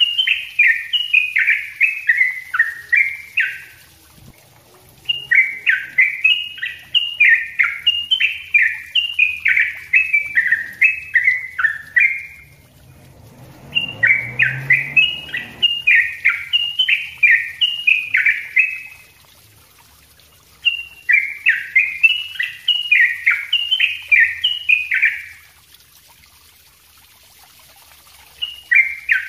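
Yellow-vented bulbul (trucuk) singing its rapid, tightly packed chattering song: quick strings of falling, slurred notes in four bouts, with pauses of one to three seconds between them.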